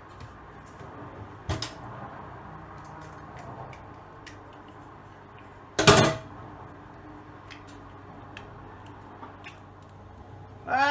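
Soft handling noises and faint clicks as a small plastic sauce pot is worked at by hand, with a single loud knock about six seconds in and a short voiced sound right at the end.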